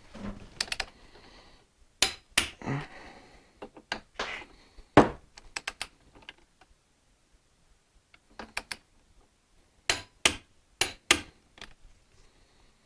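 Hand tools clicking and knocking on metal as the fork bolts are tightened: a string of sharp, separate clicks, some coming in quick pairs near the end.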